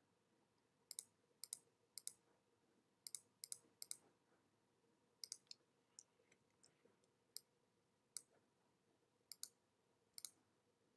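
Faint, sharp clicks of a computer being worked, about a dozen at uneven intervals, many of them in quick pairs.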